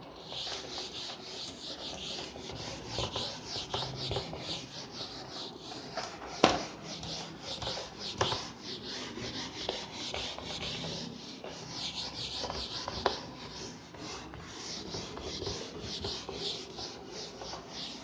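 Whiteboard eraser wiping the whiteboard in quick back-and-forth rubbing strokes, with a few knocks against the board, the loudest about six seconds in.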